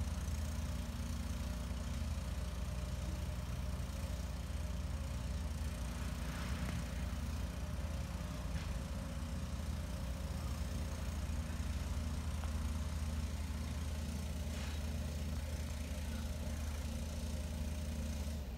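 An engine idling steadily, a low even hum that goes on without change, with a few faint ticks over it.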